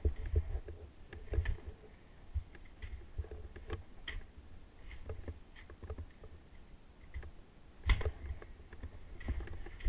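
Low rumbling on a body-worn action camera's microphone, with scattered clicks and knocks from skis and poles shifting on snow as the skier stands in place, and a sharper knock about eight seconds in.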